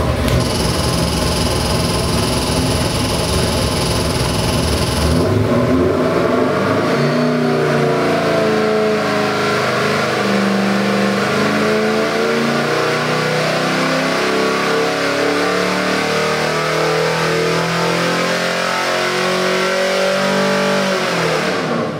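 Carbureted 427 cubic-inch Ford Windsor small-block V8 on an engine dyno. It runs at low speed with a rough pulse for about five seconds, then revs up through a full-throttle sweep pull that climbs steadily to over 5,600 rpm. The revs fall off as the throttle closes near the end.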